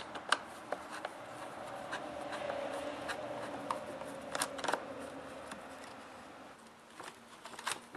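Torx screwdriver turning out small T20 screws from a chainsaw's handle bracket: faint scraping and rubbing, with a few light metallic clicks.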